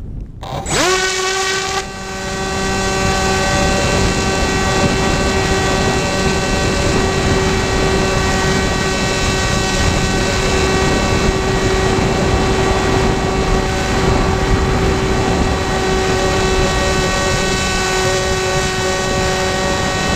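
Electric motor and propeller of a SkyEye RC airplane throttling up about half a second in, its whine rising quickly in pitch, then holding a steady high whine in flight. Wind rush on the onboard camera's microphone sits under it.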